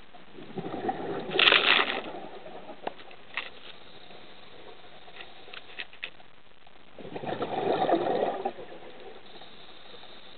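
Scuba diver's exhaled breath bubbling out of the regulator, two gurgling bursts about six seconds apart, with a few faint clicks between, recorded underwater.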